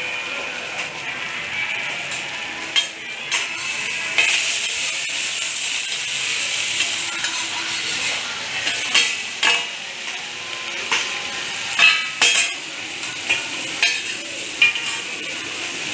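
Oyster omelette frying in hot oil on a pan with a steady sizzle, while a metal spatula scrapes and clacks against the pan in irregular strokes as it is stirred and turned.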